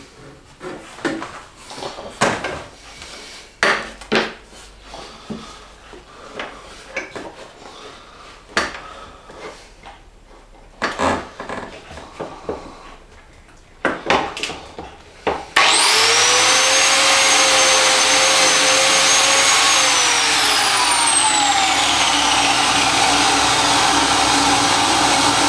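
Handling knocks and clicks as a biscuit joiner is set against the wood. About halfway through, the Einhell TC-BJ 900 biscuit joiner and the shop vacuum hooked to it start at once: a sudden loud rush with a rising whine as the joiner mills a biscuit slot. A few seconds later the joiner's whine falls away as it winds down, while the vacuum keeps running.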